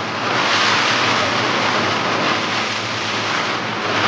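Steady rush and splash of seawater from a moving motorboat's bow wave, with a low motor hum underneath.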